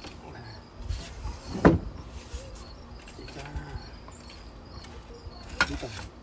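Dishes and food being handled at a glass-topped table: two sharp knocks, about a second and a half in and again near the end, with a few softer clicks between. Faint high chirps repeat in the background.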